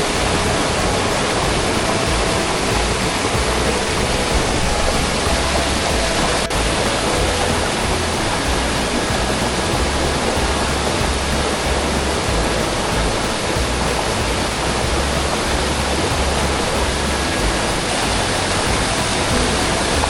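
A 25-metre waterfall pouring into its plunge pool: a loud, steady rush of falling water.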